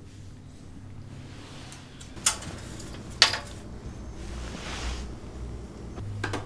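Two sharp taps about a second apart, a soft rustle, then a quick cluster of clicks near the end: a plastic prescription pill bottle being handled on a side table.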